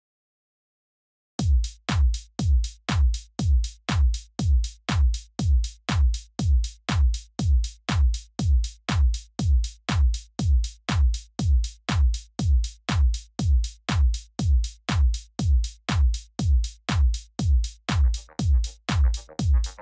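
Electronic background music: after about a second and a half of silence, a steady kick-drum beat about twice a second, with synth parts coming in near the end.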